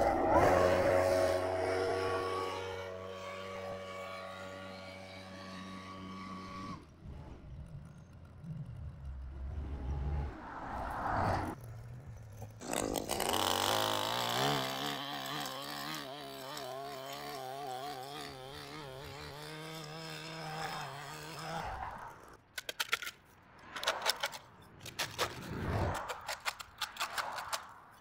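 A small petrol engine runs steadily in two stretches: first, the loudest part, and again from about a third of the way in, its upper tone wavering. Traffic passes on the road. Near the end a shovel scrapes dirt and debris off the concrete curb in a run of short, sharp strokes.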